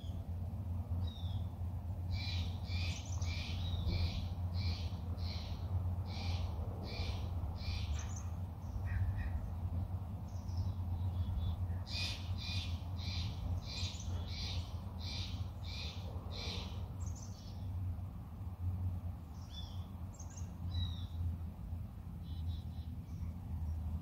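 A bird calling in two runs of about ten short, high, evenly repeated notes, each run lasting about five seconds, with a few single chirps between. A steady low hum runs underneath.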